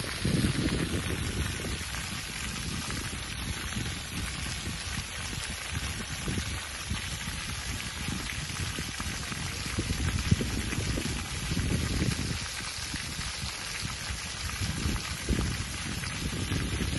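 Many jets of a ground-level plaza fountain splashing onto wet paving, a steady rain-like hiss of falling water. Irregular low rumbles come and go under it.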